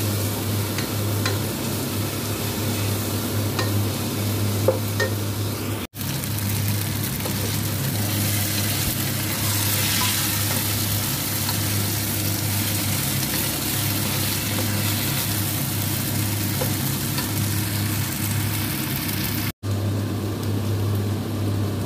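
Marinated chicken pieces frying and sizzling in hot oil with onion and garlic, stirred now and then with a wooden spatula, with a few light scrapes in the first seconds. A steady low hum runs underneath, and the sound cuts out for an instant twice.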